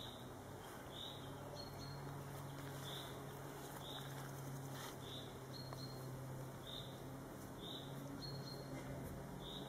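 A small songbird calling, short high chirps repeated about once a second, over a steady low hum.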